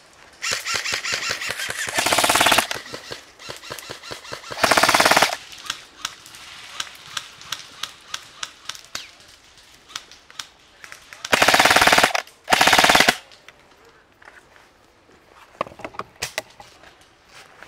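Airsoft guns firing in full-auto bursts, four loud bursts of a second or two each, the last two in quick succession. Between the bursts come scattered sharp clicks of BBs striking branches and the player.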